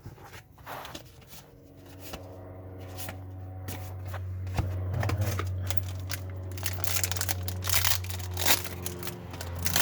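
Trading cards being handled and shuffled, with crinkling rustles of a card pack wrapper, over background music that comes in about two seconds in.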